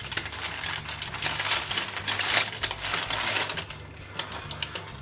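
Baking paper crinkling and rustling under the handling hands as a cheesecake is lifted on it, a dense run of small crackles that is loudest in the middle.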